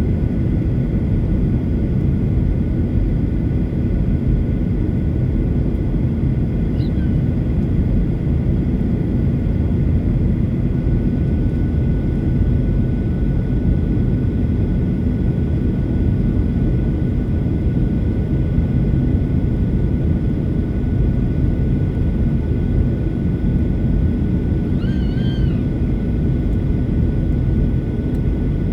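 Steady rumble of an airliner's engines and airflow as heard inside the cabin during descent, with a faint steady whine above it.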